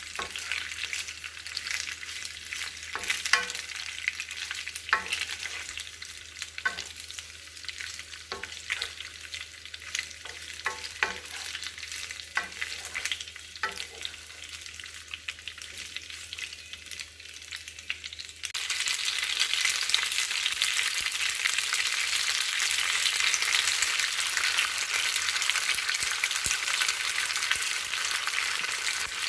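Food sizzling in a hot pan, with sharp clicks and taps of a utensil stirring. About two-thirds of the way through the sizzle abruptly becomes louder and denser.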